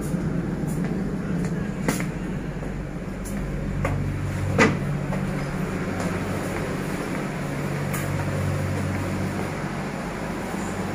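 Steady low hum and rumble inside a passenger train carriage, with a few light clicks and one louder clunk about four and a half seconds in.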